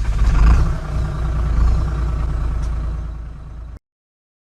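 Large bus's diesel engine running loud and low as it passes close by, then cutting off abruptly near the end.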